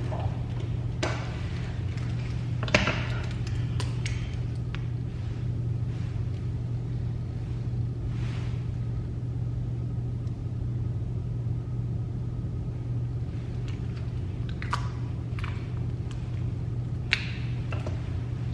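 Steady low hum of room noise with a few short clicks and light rustles of handling, clustered near the start and again near the end.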